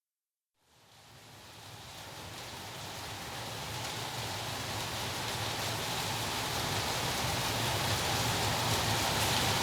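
Steady pouring rain, fading in from silence about half a second in and growing gradually louder.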